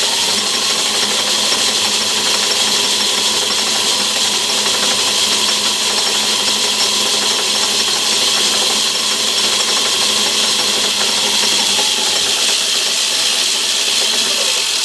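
Myford ML7 lathe running in reverse, its motor, gear train and leadscrew driving the carriage back out along the thread between screwcutting passes. A steady whir with a faint gear whine that stops suddenly at the end when the lathe is switched off.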